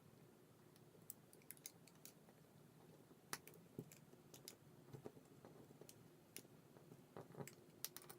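Faint, irregular light clicks and taps of small tools and phone parts being handled during an iPhone 5s screen repair, about fifteen sharp ticks over a low steady hum.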